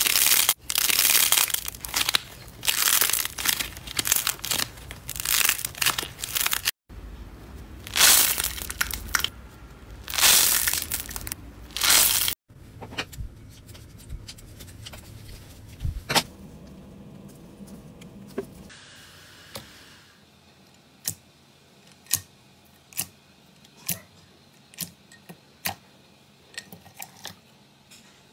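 Thick slime being stretched and pulled apart by hand, giving loud, repeated bursts of crackling, tearing noise for the first dozen seconds. Quieter handling sounds follow, then a run of short, sharp clicks about once a second near the end.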